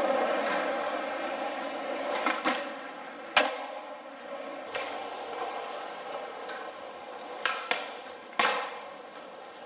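Skateboard wheels rolling on smooth concrete, fading as the board moves away, with sharp clacks of the board striking the ground: one loud clack about three and a half seconds in, then three more near the end.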